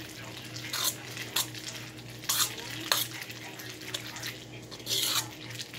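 Metal fork stirring macaroni and cheese in a stainless steel bowl: a handful of irregular scrapes and clinks of metal on metal, mixing in melting butter.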